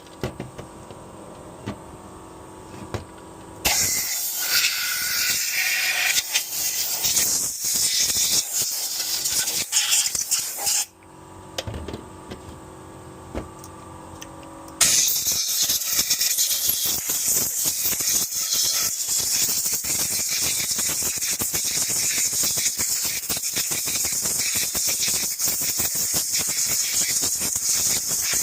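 Compressed-air blow gun hissing in long blasts over the cyclone parts of a Dyson stick vacuum: one blast from about 4 to 11 seconds in, then a second steady blast from about 15 seconds in, with a quieter pause between them.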